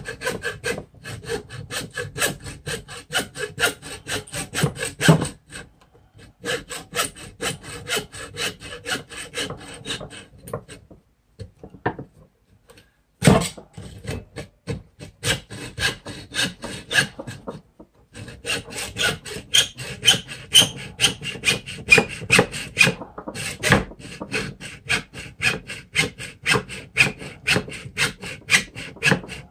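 Hand saw cutting through the wooden hatchet handle end that sticks out above the head, in quick back-and-forth strokes at about two to three a second. The sawing stops briefly twice, once for a couple of seconds, and a single knock comes about 13 seconds in.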